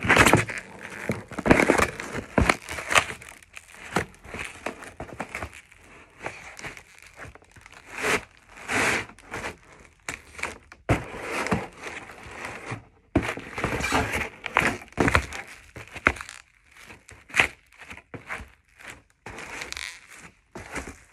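Cardboard shoebox being stamped and crushed under sneakers: irregular crunches, crumpling and tearing of cardboard and packing tape, loudest at the start and in scattered clusters after.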